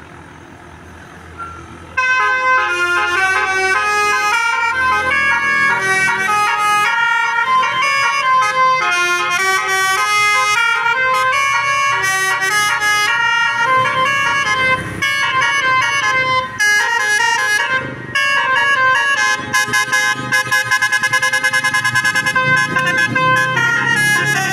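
Basuri telolet bus horn, a multi-tone air horn, playing a tune as a run of changing pitched notes, breaking into fast repeated stuttering notes near the end. It starts about two seconds in over a low engine rumble.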